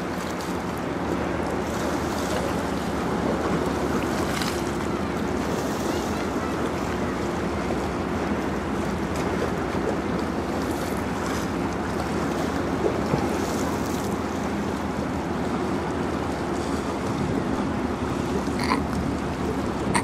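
Steady low drone of the Great Lakes bulk freighter Hon. James L. Oberstar passing close by, with water washing along its hull and wind on the microphone.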